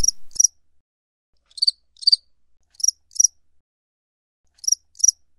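A grasshopper (criquet) stridulating: four pairs of short, high chirps, a pair every second or two.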